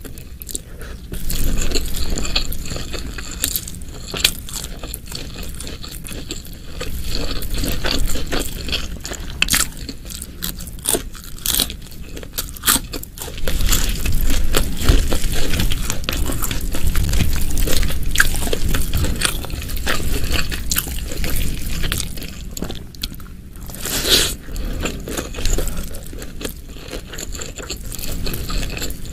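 Close-miked eating: chewing and biting with many short, irregular crunchy and wet mouth clicks, from a person eating rice with spicy shredded chicken and beef-fat satay.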